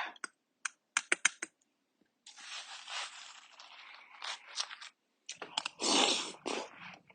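Close-up, noisy watermelon eating: quick wet clicking mouth sounds, then a couple of seconds of steady rasping, then a loud crunchy bite about six seconds in.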